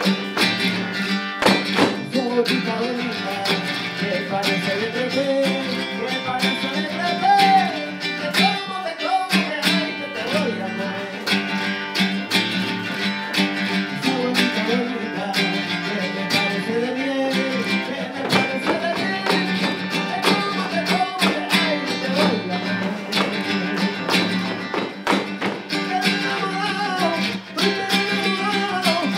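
Flamenco music: acoustic flamenco guitar and a man's voice singing a wavering, ornamented melody, with sharp percussive clicks throughout.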